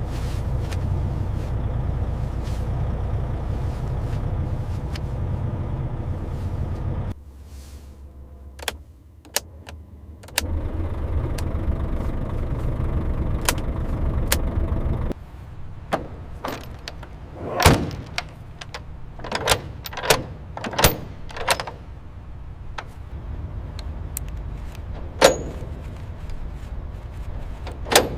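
Low steady vehicle-engine rumble that drops away about seven seconds in, returns, then fades about halfway through; after that, a series of sharp knocks and clunks, such as doors being shut, over a quieter background.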